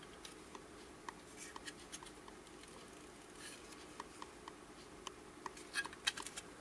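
Faint, irregular clicks and light scraping of a hollow plastic model car body being turned over in the fingers, with a few sharper clicks near the end.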